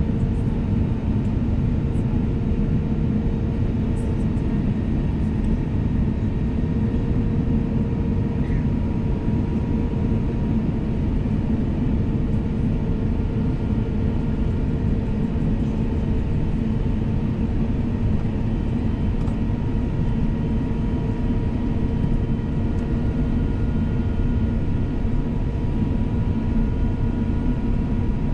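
Steady engine noise of an Airbus A350-1000's Rolls-Royce Trent XWB engines heard from inside the passenger cabin: an even, deep rumble with a few faint steady hums over it.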